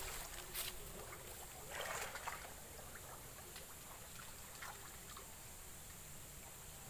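Shallow ditch water splashing and trickling as a hand net and plant stems are moved through it: a few short splashes in the first two seconds or so, then only faint drips.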